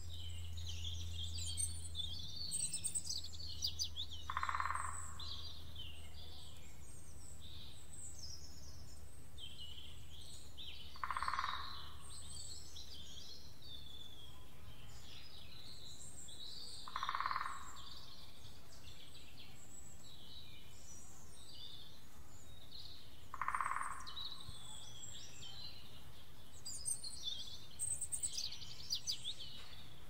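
Forest ambience with many small birds chirping and trilling over a steady background hiss. A lower, short call sounds four times, about six seconds apart.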